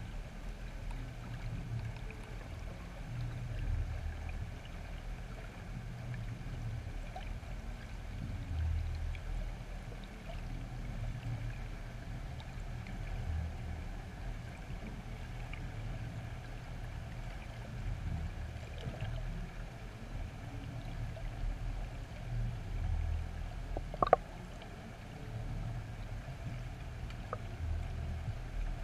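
Underwater ambience picked up through a GoPro housing: a low, uneven rumble with faint scattered clicks, and one sharp click late on.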